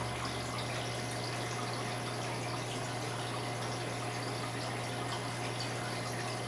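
Aquarium water circulation: a steady wash of trickling, splashing water from the tank's filter and pump, over a steady low hum.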